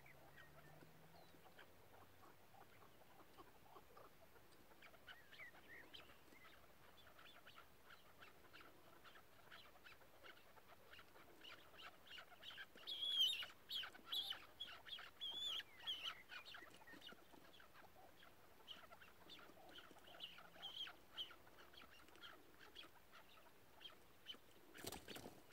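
Chukar partridge calling: a fast run of short, clucking notes that starts softly, is loudest about halfway through, then thins out. A brief thump near the end.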